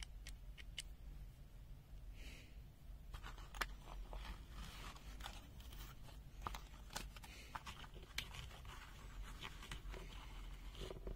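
Handling of a Wiha 1/4-inch bit set: scattered light clicks and scrapes, a few at first and then many in quick, irregular succession from about three seconds in.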